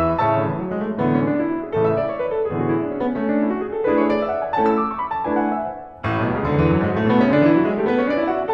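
Background piano music playing rising runs of notes, with a short break about six seconds in.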